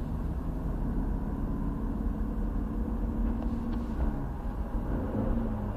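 BMW E46 318i's N42B20 2.0-litre four-cylinder engine running steadily, with a thin steady whine above the engine note; this is the strange noise the owner is trying to show, its cause unknown.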